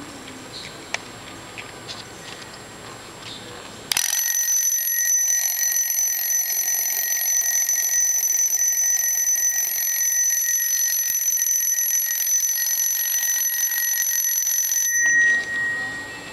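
Single-bell metal desk alarm clock ringing: after a few faint clicks, the bell starts suddenly about four seconds in and rings loudly and steadily for about eleven seconds. It then stops, and the bell rings on briefly as it dies away.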